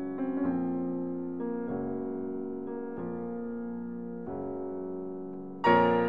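Slow piano music: sustained chords that change about every second or so, with a louder chord coming in near the end.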